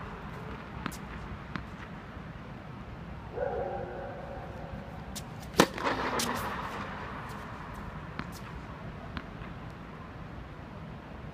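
A tennis ball struck hard with a racket once, a little past the middle, with a reverberant echo after the hit, amid a few fainter ball bounces or taps. A brief pitched sound comes about three seconds in.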